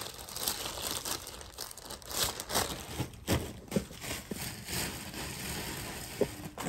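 Plastic packaging bags crinkling and rustling in irregular bursts as clothing is handled and unpacked from them.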